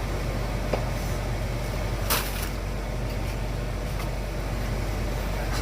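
Kitchen background: a steady hum, with a small click under a second in and a brief rustling clatter about two seconds in.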